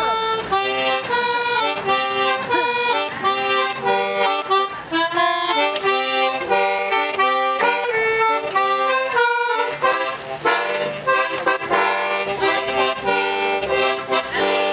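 Small red accordion playing a tune of held notes and chords, the notes changing every half second or so.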